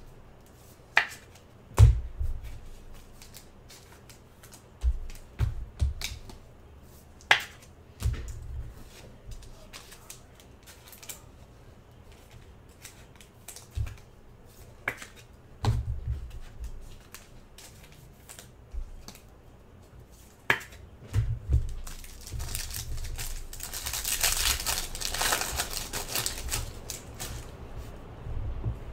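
Trading cards and card packs being handled on a table: scattered clicks and soft knocks, then about five seconds of crinkling, like a pack wrapper being opened, a little before the end.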